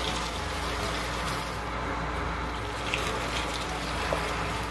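Liquid poured into a hot frying pan of chicken and mushrooms, with a steady sizzle of the simmering pan; cream goes in near the end.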